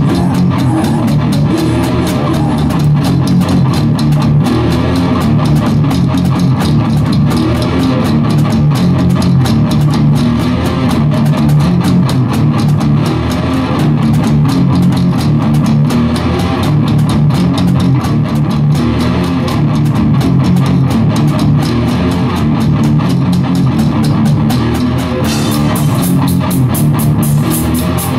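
A deathgrind band playing live: distorted electric guitars, bass and drum kit, loud and dense. About 25 seconds in, fast, bright cymbal hits come to the fore.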